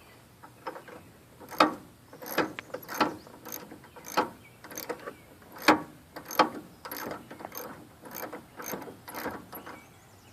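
Ratchet wrench clicking as a 12 mm bolt is loosened, an uneven series of short clicks about two a second.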